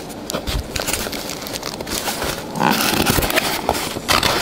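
Hands working a small cardboard box open: cardboard flaps scraping and rubbing, with scattered clicks and rustles, busiest about two-thirds of the way through.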